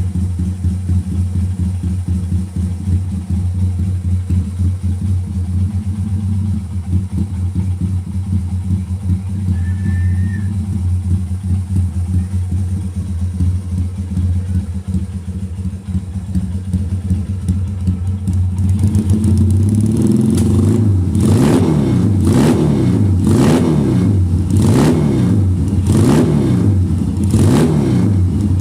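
Honda CB200 parallel-twin engine idling steadily, then, about two-thirds of the way through, blipped repeatedly, the note rising and falling about once a second.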